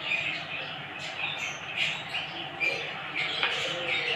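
Faint, irregular chirping of small birds in the background over low room noise, with a brief click about three and a half seconds in.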